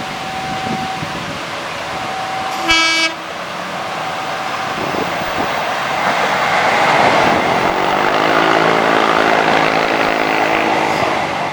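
Diesel locomotive hauling a passenger train: one short horn blast a few seconds in, then the engine's deep running sound and wheel noise growing louder as it approaches and passes. A steady warning tone sounds on and off before the horn and stops soon after it.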